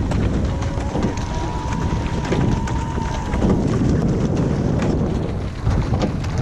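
Wind buffeting the microphone on the open water, over a steady low rumble and scattered clicks, with a faint thin tone for a few seconds early on.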